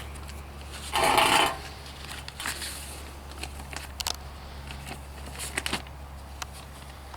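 Small handling noises: a brief loud rustle about a second in, then scattered light clicks and scrapes, over a steady low hum.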